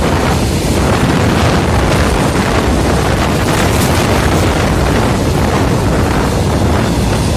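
Loud, steady rumble of a freight train's flat wagons passing close by, wheels running on the rails, with a heavy low-end buffeting.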